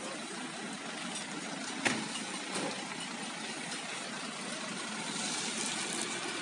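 Engines of parked buses and ambulances idling steadily, with one sharp click about two seconds in.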